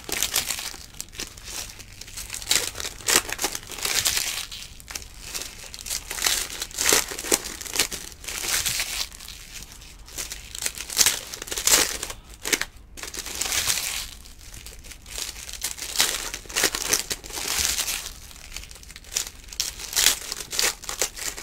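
Foil trading-card pack wrappers (Donruss Optic baseball packs) being torn open and crumpled by hand: irregular crinkling and tearing rustles, one after another.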